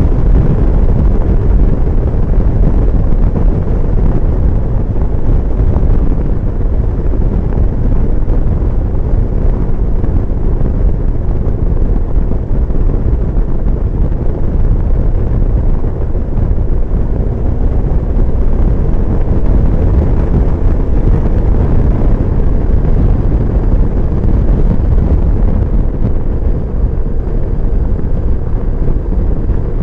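Wind buffeting the microphone on a BMW R1150GS motorcycle at road speed: a loud, steady low rumble, with the bike's boxer-twin engine and road noise underneath.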